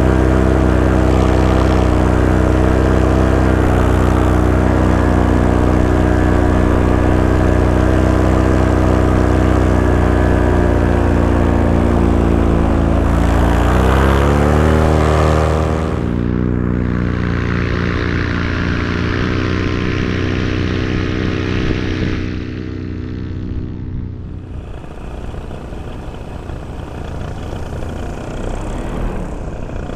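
Paramotor engine and propeller running steadily at cruise, rising in pitch as it is throttled up about halfway through, then giving way to a noisier, quieter rush of engine and wind that drops again near the end.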